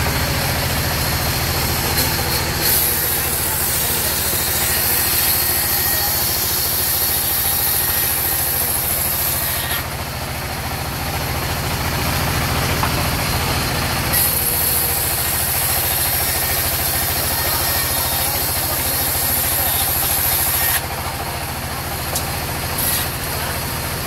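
Sawmill band saw running with a steady low drone from its belt drive, and a high hiss as the blade rips lengthwise through a mahogany log: two long cuts of about seven seconds each, starting about three seconds in and again about fourteen seconds in.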